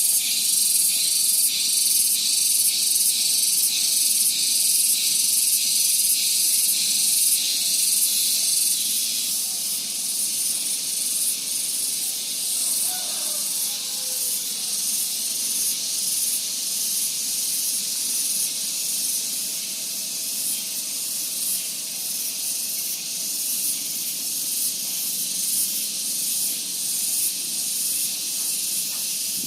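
Dense, high-pitched insect chorus, a continuous shrill pulsing drone, a little louder in the first third.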